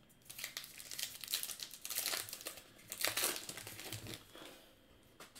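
Wrapper of a 2020 Bowman Heritage baseball card pack being torn open and crinkled by hand: a dense crackling crinkle for about four seconds that dies away near the end.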